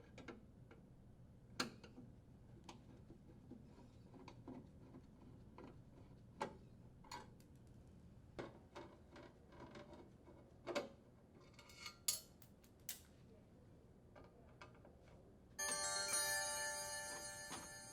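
Faint, scattered clicks and taps of a Phillips screwdriver and screws being backed out of a heat pump's sheet-metal junction box. Near the end a ringing tone of several pitches starts suddenly and fades away.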